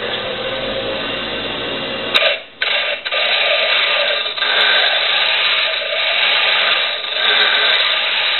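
A bench grinder runs with a steady motor hum. About two seconds in, a star-wheel dressing tool is pressed against the spinning grinding wheel, and a loud, harsh grinding rasp takes over, dipping briefly now and then. The dresser's hardened star wheels are pounding the stone to true and sharpen its face.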